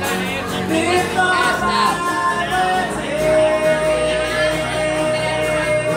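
Live band with acoustic guitar and a singer playing a song; about three seconds in the singer holds one long note.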